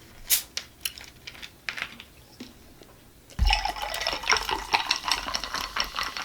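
A few light handling clicks, then about three and a half seconds in, fresh Pepsi poured from a 2-liter bottle, fizzing with a dense crackle that carries on to the end.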